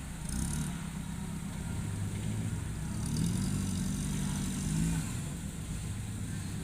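A motor vehicle engine running steadily, a little louder for a couple of seconds midway.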